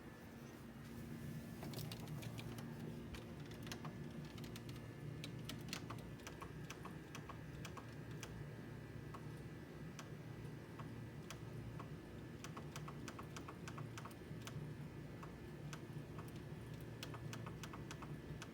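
Faint, quick runs of light clicks of keys or buttons being pressed, like typing, over a low steady hum.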